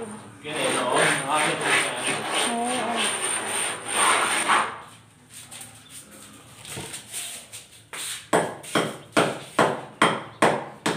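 Steel file scraped over a rough plastered concrete wall: a continuous rasping scrape for about four seconds, then a lull, then a run of short, regular strokes at about two to three a second near the end.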